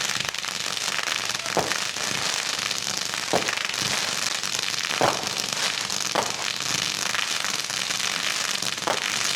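Fireworks going off: a steady, dense crackling with five sharper bangs spaced one to three seconds apart.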